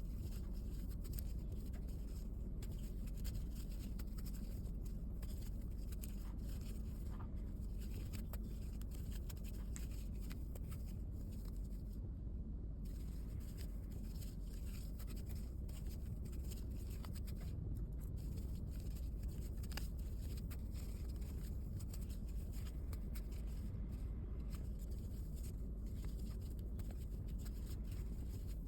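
Steady low background hum with faint, soft scraping and rustling of a crochet hook working thick t-shirt yarn into single crochet stitches.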